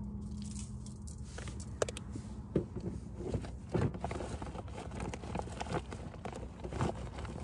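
A plastic bag rustling and crackling in quick irregular bursts as a hand rummages through it, over a steady low rumble.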